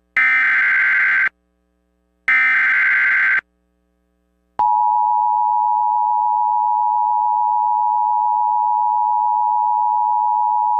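Emergency Alert System SAME header: two of its roughly one-second bursts of buzzing data tones, a short gap, then the EAS attention signal, a steady two-tone beep, starts about halfway through and holds.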